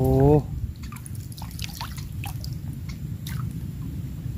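A small hooked tilapia splashing at the water's surface as it is reeled in and lifted out. It makes a scatter of short splashes and drips over a steady low rumble.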